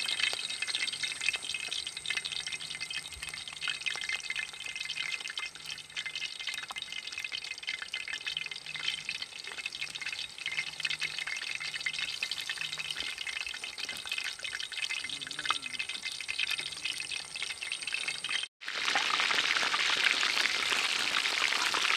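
Batter-coated chicken wing pieces deep-frying in hot oil in a wide metal pan: a steady crackling sizzle. Near the end it drops out for an instant and comes back louder and denser.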